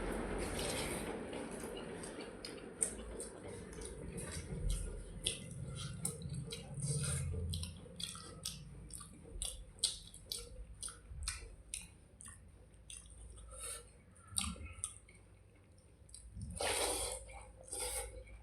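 Close-up eating sounds of panta bhat, water-soaked rice: irregular wet smacks, squishes and clicks of the rice being eaten and chewed, with a louder wet rustle near the end.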